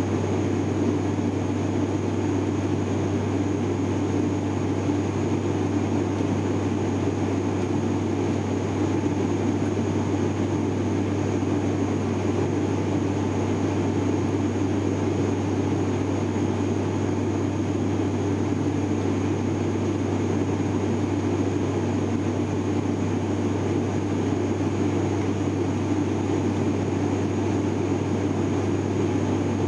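Steady cabin drone of an ATR 72-600's twin turboprop engines and propellers in flight, heard from inside the passenger cabin, with a strong deep hum under the rushing noise.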